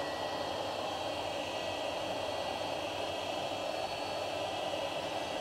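Hot air gun blowing steadily, a rush of air with a faint high whine, heating a power adapter's label to loosen its glue.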